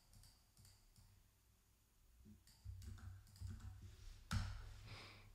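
Faint clicking of a computer keyboard and mouse while a terminal command is typed and a name is selected and pasted in, with the loudest click about four seconds in.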